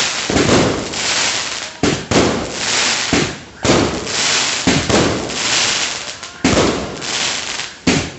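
Leegendary Fireworks' Waltz of Jujube, a 16-shot large-caliber aerial cake, firing: sharp bangs about once a second, some in quick pairs, as shells launch and burst, each followed by a fading hiss and crackle of the stars.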